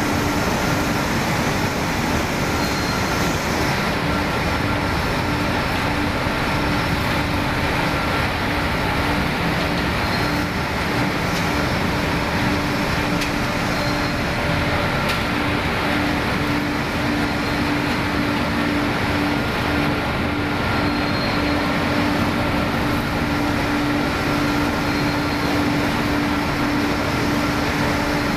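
Cotton-waste recycling machine running steadily: a dense, even mechanical noise with a constant hum.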